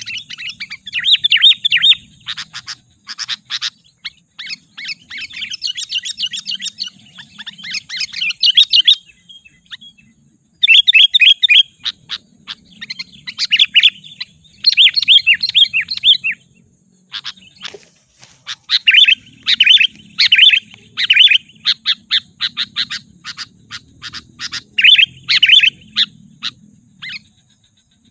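Sooty-headed bulbul singing in loud, quick runs of chirping notes, with one pause of about a second and a half about a third of the way in.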